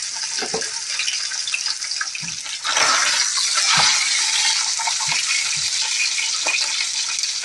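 A whole fish frying in hot oil in a wok on high heat: a steady sizzle with small crackles, growing louder about three seconds in.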